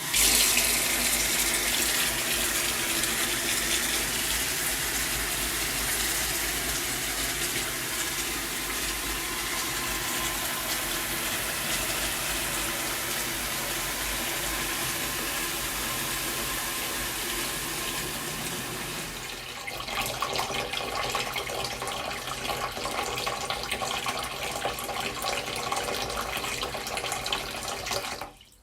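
Tap running steadily into a sink as it fills. The sound starts suddenly, changes character about two-thirds of the way through, and cuts off abruptly near the end as the tap is shut.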